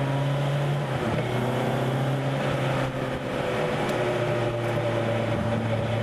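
Sports car engine running steadily under way, its note shifting slightly about a second in and drifting gently in pitch, over road and wind noise.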